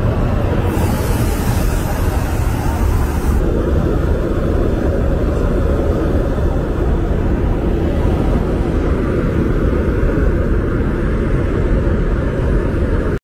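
Steady in-flight cabin noise of an aerial-refuelling tanker: a loud, deep rumble of engines and airflow. A brighter hiss joins in about a second in and drops out after a few seconds, and the sound cuts off abruptly at the end.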